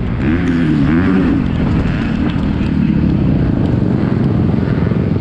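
A 250cc four-stroke motocross bike's engine, heard close on the bike: the revs rise and fall a few times in the first second and a half, then it runs at a lower, rough, steady pace.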